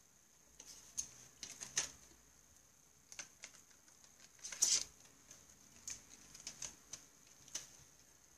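Irregular light clicks and taps of a wooden pencil and a small clear plastic case being handled on a desk, a dozen or so sharp ticks, the loudest cluster about halfway through.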